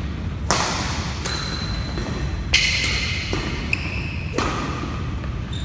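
Badminton rally: a racket strikes the shuttlecock in sharp, ringing hits, about five in a few seconds, with brief high squeaks between them, over a steady low rumble.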